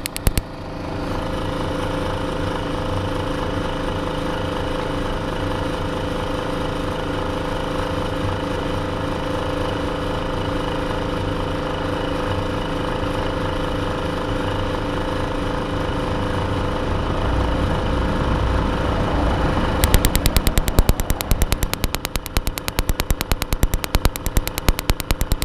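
Atwood Hydroflame 8520 RV furnace running through its ignition cycle. The blower motor hums steadily, and about twenty seconds in the newly fitted spark igniter starts a rapid, even ticking as it sparks at the electrode of the burner, with the blower still running. A short run of the same ticking stops just after the start.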